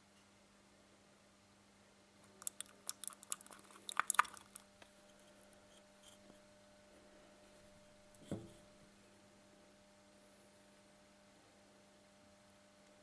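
Handling noises at a workbench: a quick, irregular run of small plastic clicks and taps as a plastic cup, bottle and thin wire are handled, then a single soft knock about eight seconds in, over a faint steady mains hum.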